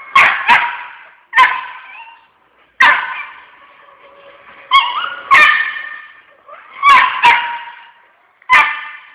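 A smooth fox terrier barking repeatedly: about nine sharp, high-pitched barks, often in quick pairs, with gaps of a second or so between them.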